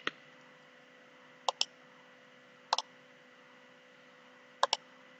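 Computer mouse clicking: four quick double ticks spread across a few seconds, over a faint steady electrical hum.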